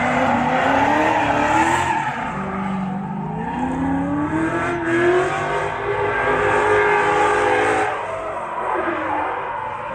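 Two drift cars tandem drifting, engines revving hard with tyres squealing. The engine note climbs steadily from about three seconds in and falls away near the end.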